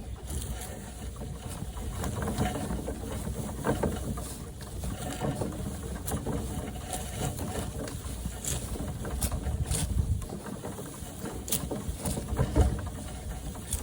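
Loaded wheelbarrow being pushed over the ground, picked up by a camera mounted on its bar: a continuous low rumble from the wheel, with scattered knocks and rattles as the barrow and its load of storm branches jolt.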